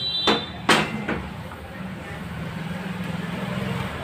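Three sharp metallic knocks of hand tools against the steel bench and the engine's alloy crankcase within about the first second, the middle one loudest, followed by a low steady hum.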